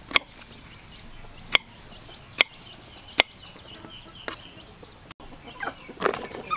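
Kitchen knife cutting through a peeled green vegetable and striking a wooden chopping board: five sharp knocks, roughly one a second, the last one softer. Near the end, a few soft knocks as the slices are dropped into a plastic colander.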